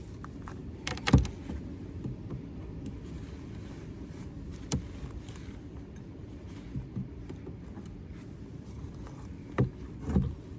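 Wind rumbling on the microphone, with a few sharp knocks from wooden hive frames being handled: the loudest about a second in, more near the end.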